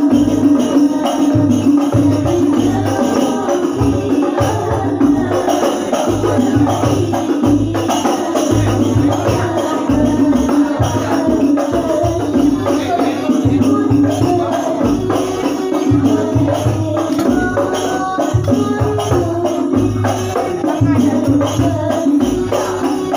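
Al-Banjari shalawat: hand-struck rebana frame drums playing a fast, steady rhythm under a woman's voice singing a devotional melody.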